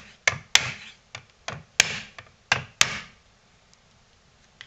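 Hammer striking a flat blade set on the seam of a plastic power-supply brick held in a steel bench vise: about seven sharp taps in the first three seconds, cracking the glued or sonic-welded case loose.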